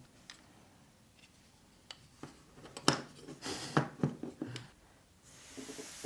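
Handling of small plastic figurine pieces and packaging: a few sharp light clicks and taps, the loudest about halfway through, with short bursts of rustling between them and a soft rustle near the end.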